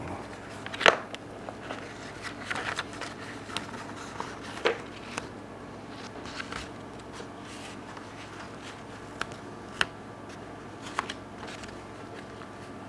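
A vinyl decal being peeled from its backing sheet and handled: scattered crinkles and sharp ticks of plastic film and paper, the loudest about a second in, over a steady low hum.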